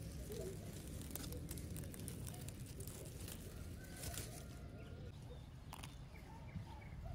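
Grass and dry leaves rustling with scattered light clicks as wild strawberries are picked by hand, with a few faint bird calls.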